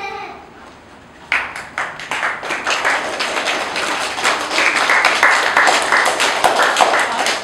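Audience applauding: many people clapping, starting suddenly about a second in and growing fuller toward the end.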